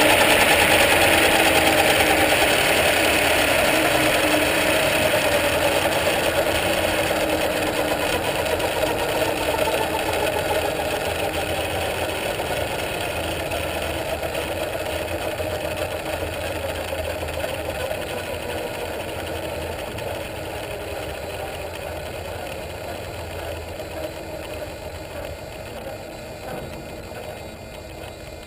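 Align T-Rex 550E electric RC helicopter's motor and main rotor spinning down on the ground: a whirring whine that slowly falls in pitch and fades.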